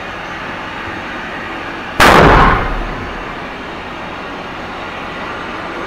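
A single rifle shot from an Uberti 1873 Sporting Rifle, a lever-action replica of the Winchester 1873, about two seconds in, its report ringing off the roofed firing point and dying away within a second. A steady background noise runs beneath it.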